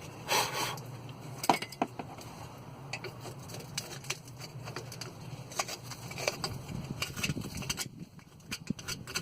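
Scattered sharp clicks and light knocks of tools and brake parts being handled at the wheel, over a steady low hum.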